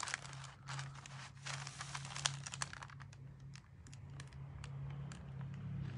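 A pen scratching in short, irregular strokes as it traces a drawing through transfer paper onto a canvas, with the paper rustling under the hand. A low steady hum runs underneath.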